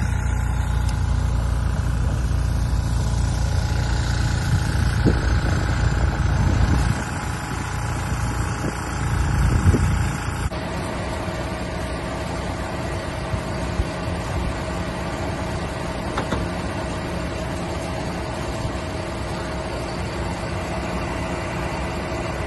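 Fire engine's engine running with a steady low rumble. About ten seconds in, the sound changes to a steadier, quieter hum with a faint held tone.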